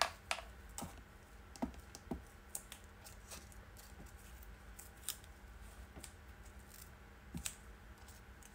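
Glue stick rubbed over paper: a faint scratchy rustle with scattered light clicks and taps as the paper and stick are handled.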